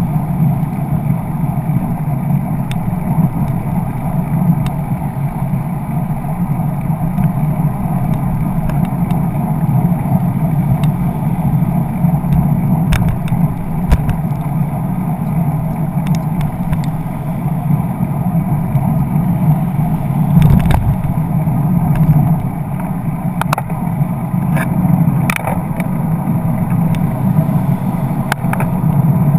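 Steady rush of wind and road rumble on a bicycle-mounted camera riding beside car traffic, with a few sharp knocks from about halfway through.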